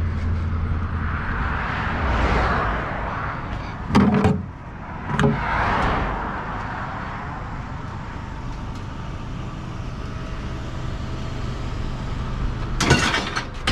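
A vehicle running with a steady low engine hum and swells of road noise. There are two short knocks about four and five seconds in, and a loud burst of rattling noise near the end.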